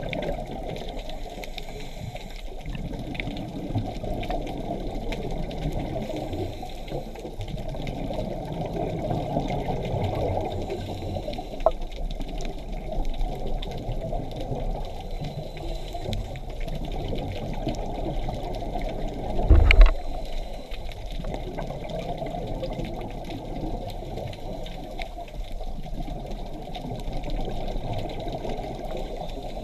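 Scuba diver's exhaled regulator bubbles gurgling and rushing, heard underwater, with one brief louder burst about twenty seconds in.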